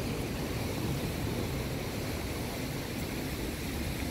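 Wind rumbling steadily on the microphone, with no distinct events.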